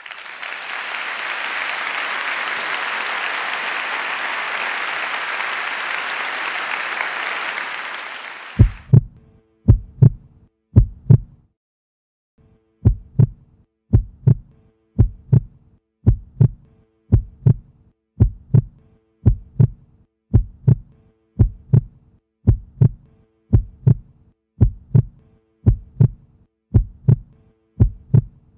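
Audience applauding for about nine seconds, fading out. Then a steady heartbeat-like thumping beat, about one beat a second, with a faint held tone behind it, as in an outro sound track.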